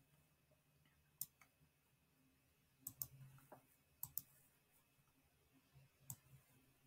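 Faint, scattered clicks of a computer mouse, about eight of them, some in quick pairs, over near silence.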